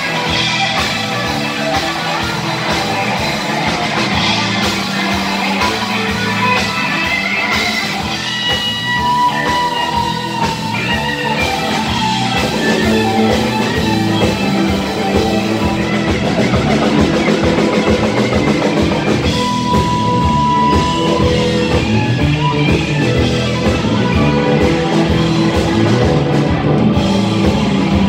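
Live blues-rock band playing an instrumental passage: electric guitars over drums, bass and keyboard, with a steady beat. Long held lead notes come about a third of the way in and again just past the middle. It is heard from among the audience.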